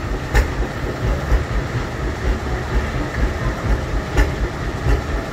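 Small boat engine idling with a steady low chugging, with a few sharp knocks over it.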